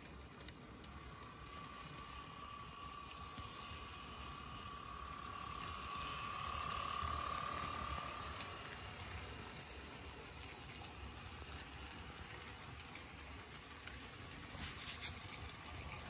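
HO scale model train running past: a faint steady whine and rolling hiss from the locomotives' motors and wheels on the track, growing to their loudest about seven seconds in as the locomotives pass close, then fading, with a few light clicks near the end.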